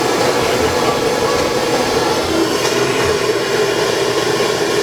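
Propane torch gun burning with a steady, loud rushing hiss, heating a branding iron.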